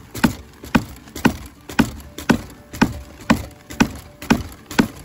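A hoe tapping the plastic hopper of an Earthway commercial sand spreader in a steady rhythm, about two knocks a second. The tapping shakes the hopper so the masonry sand, which clumps at the bottom, keeps falling through the wide-open gate.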